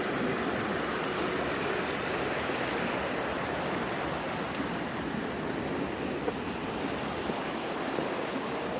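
Mountain stream rushing steadily, with a couple of faint clicks about halfway through.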